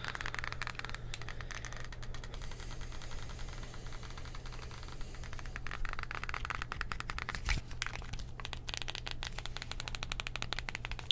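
Rapid plastic clicking from an LG Smart TV remote worked close to the microphone, many clicks a second with short pauses, and one louder knock about seven and a half seconds in.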